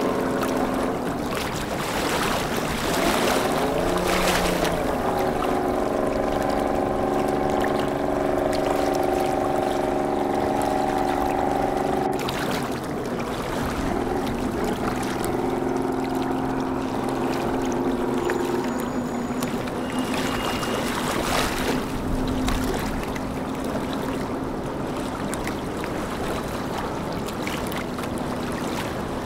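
Boat engines running: a steady droning hum made of several tones, which shifts in pitch a few times as boats work in the harbour. There is a wash of water and wind noise underneath.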